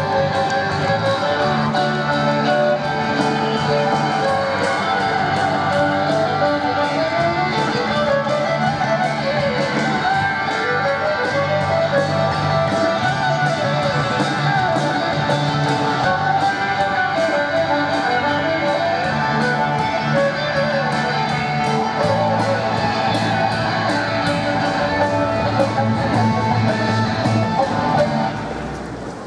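Live rock band playing an instrumental passage: a violin melody over strummed electric guitar, with drums keeping a steady beat. The music drops away briefly near the end.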